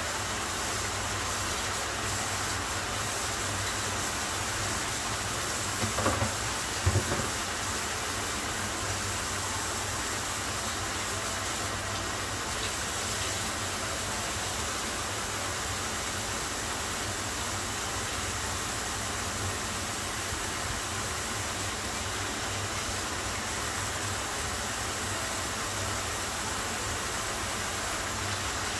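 Salmon steaks sizzling in a nonstick frying pan, a steady hiss as their marinade and a little added water cook down over high heat. Two brief knocks about six and seven seconds in.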